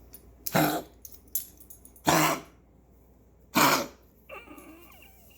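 A pet coughing in a repeated series: three short coughs about a second and a half apart.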